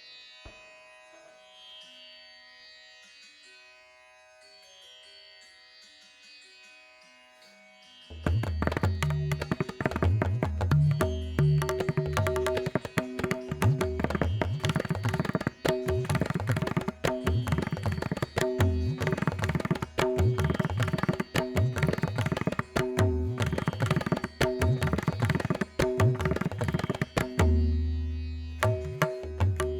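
Indian-style background music: a soft melodic opening, then about eight seconds in a fast hand-drum rhythm comes in loudly over steady held tones.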